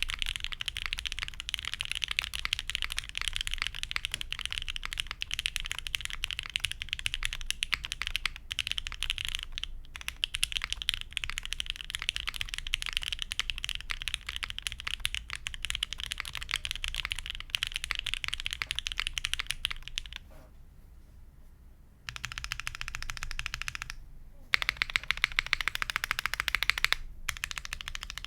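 Mechanical keyboard typed on quickly and continuously: Gateron Box Ink Black V2 linear switches on an undampened aluminium plate with GMK Apollo keycaps, giving a dense clatter of keystrokes. The typing stops for about two seconds about two-thirds of the way through, then resumes.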